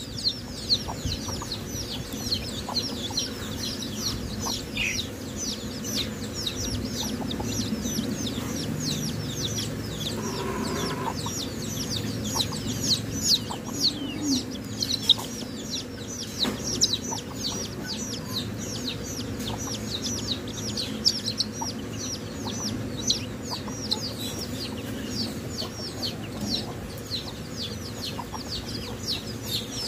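A brood of Muscovy ducklings peeping constantly, a dense chorus of short, high, falling peeps.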